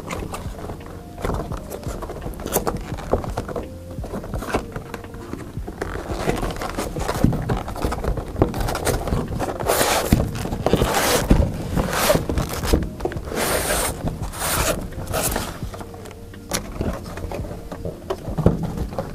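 A cardboard box being opened: the inner box scrapes and rustles as it slides out of its printed sleeve, then the lid is lifted off. The scraping comes in repeated strokes, loudest in the middle. Background music plays underneath.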